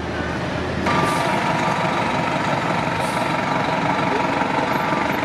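Nova RTS diesel transit bus driving slowly past, its engine running with a steady high whine that comes in about a second in, and short hisses of air.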